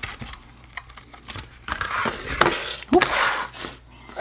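Clear plastic packaging of soft-plastic swim baits being handled and opened: crinkling and rustling with small clicks, busiest in the middle, with a brief rising squeak about three seconds in.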